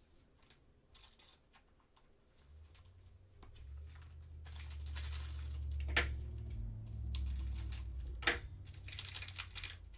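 Foil trading-card pack being torn open and crinkled by gloved hands, starting quietly and getting louder about halfway in, with two sharp cracks of the wrapper. Under it is a low rumble of handling.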